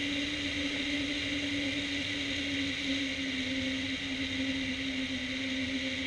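Steady wind rush from a hang glider in flight, heard through a camera mounted on the wing, with a constant low hum running through it.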